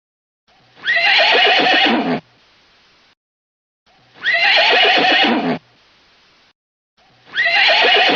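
A horse whinnying: two loud whinnies about three seconds apart, each about a second and a half long, and a third starting near the end.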